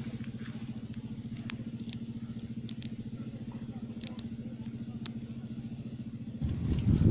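A small engine running steadily with a fast, even pulse, with a few faint clicks over it. Near the end a loud low rumble suddenly rises over it.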